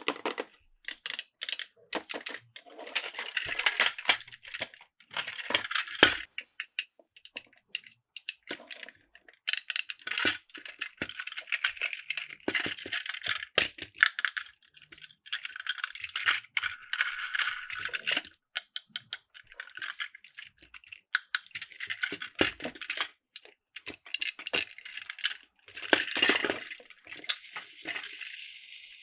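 Plastic toy trains clattering: irregular clicks and rattles of small plastic parts, in bursts. A steady hiss sets in near the end.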